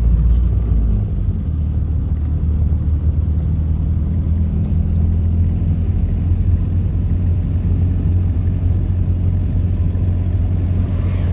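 Car engine and road noise heard from inside a moving car's cabin: a steady low drone whose note shifts about a second in.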